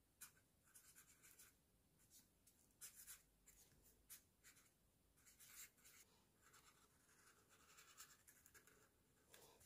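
Faint scratching of a black felt-tip marker writing on brown lined paper, many short strokes in quick succession.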